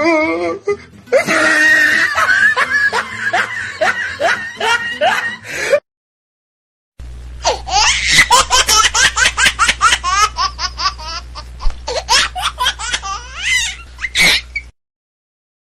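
Two laughing sound effects one after the other. First comes a fit of laughter in quick repeated bursts for about six seconds. After a second of silence, a second, higher-pitched burst of rapid laughter runs over a low steady hum and cuts off suddenly near the end.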